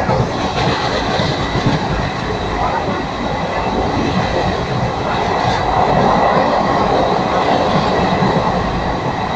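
Train running along the track: a steady running noise with a faint high whine held throughout.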